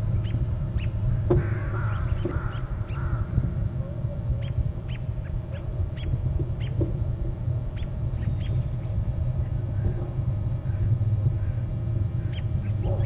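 Wild birds calling outdoors over a steady low hum. There is a short burst of chattering calls about a second and a half in, and brief chirps scattered through the rest.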